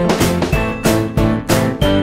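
Background music with a steady, quick beat of about three to four notes a second.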